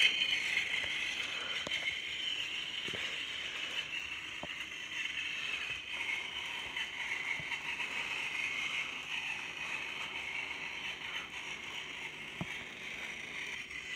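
Plarail Toby battery-powered toy train's motor and gearbox whirring steadily as it runs along plastic track, with a few faint clicks.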